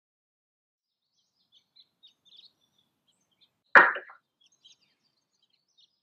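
A ceramic mug knocks once with a short clink as it is hung on a wall hook beside a glass cup. Faint, high bird chirps come and go in the background.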